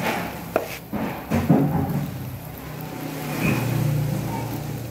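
Banana-cake batter frying in a pan, with chopsticks clicking against the pan and plates a few times in the first second and a half. Under it runs a low, steady engine-like hum that swells near the end.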